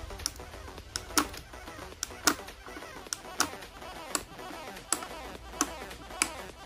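Sharp metallic clicks, about one or two a second and unevenly spaced, as the stainless-steel blade coupling on the bottom of a blender jar is turned and handled by hand.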